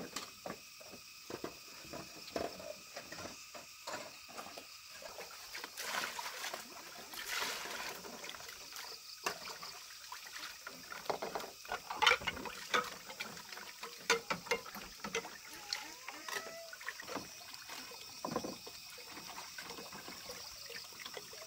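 Hands washing dishes in a plastic basin of water: splashing and sloshing, with many small knocks and clinks of bowls and utensils. Near the end water runs from a pipe into the basin.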